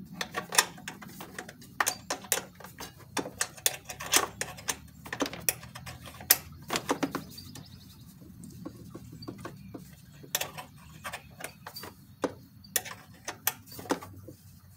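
Irregular clicks, taps and small knocks of hands handling parts on a lawn tractor's engine, over a faint low hum.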